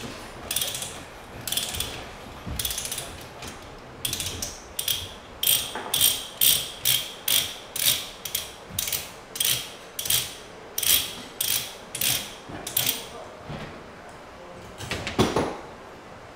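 Hand ratchet pipe threader (die stock) being worked back and forth to cut a thread on a pipe held in a vise: the ratchet clicks in regular strokes that quicken to about two a second. The clicking stops near the end, followed by a single heavier clunk.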